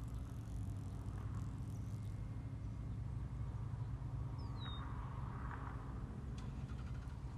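Open shoreline ambience: a low, steady wind rumble, with one short bird call falling in pitch about four and a half seconds in.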